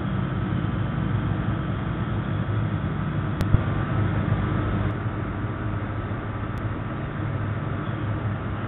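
Halide leak-detector torch burning with a steady, even rushing sound and a low hum underneath.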